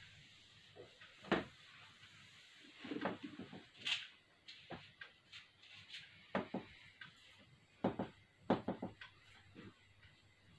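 Irregular sharp knocks and short scrapes of a board duster and a marker against a whiteboard hanging on a wall.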